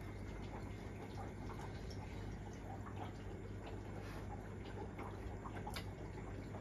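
Aquarium filter running: a faint, steady low hum with soft trickling and dripping of water, and a few soft ticks.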